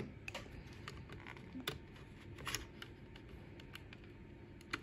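Faint, scattered clicks and taps from a small screwdriver working the screw terminals of a Texecom Premier Elite alarm expander board as a zone wire is moved back to its original terminal.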